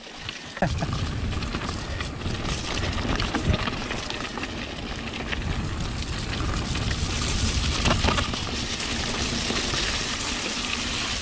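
Riding noise from a Giant Trance mountain bike: a steady rushing of wind on the microphone and tyre rumble, with a few knocks from the bike and trail. The hiss grows brighter about seven seconds in.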